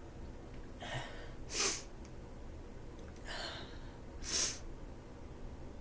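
A woman with a heavy head cold takes a quick, breathy breath in and then lets out a short, sharp nasal burst, twice.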